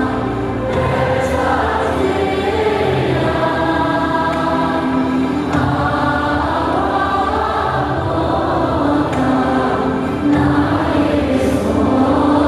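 Choir singing a slow melody in long held notes, a little louder about ten seconds in.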